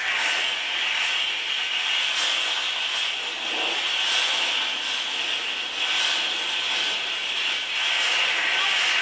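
Live improvised noise music recreating factory sound: a steady hissing, rubbing texture, with a soft swish repeating about every two seconds.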